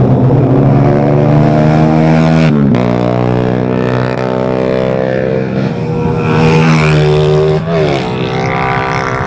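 Motorcycle engines running at held revs, with a sudden drop in pitch about two and a half seconds in and a quick dip and climb near the end.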